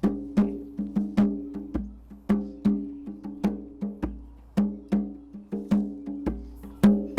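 Rhythmic percussion groove: sharp, pitched hand-drum or wood-block strikes about three a second, with a deeper bass hit roughly every two seconds.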